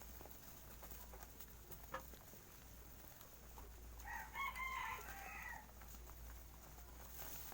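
A rooster crows once, a call of about a second and a half starting about four seconds in. A single short click comes a little earlier.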